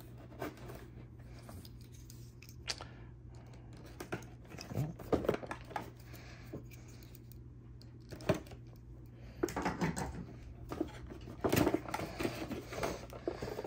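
Utility knife slitting the tape seals on a cardboard box, with scattered scrapes and clicks of blade and cardboard. The box is then opened and handled, and the cardboard scraping and rustling is louder and busier near the end.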